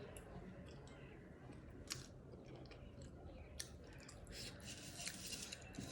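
A person chewing food, faint, with a couple of sharp clicks and a crackly stretch of mouth noise near the end.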